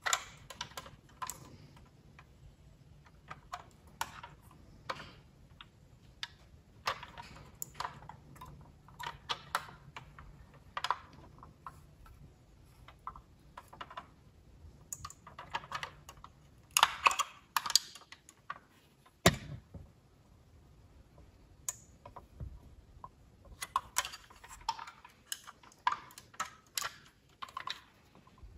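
Handling noise from a diecast metal Maserati race-car scale model being turned in the hands: irregular small clicks and taps of its metal and plastic parts. There is a run of louder clicks a little past halfway and another near the end.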